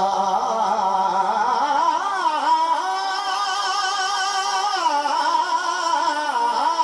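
Man singing a devotional rubai in long held notes into a microphone, the pitch bending in short ornamental turns about two seconds in and again near five seconds.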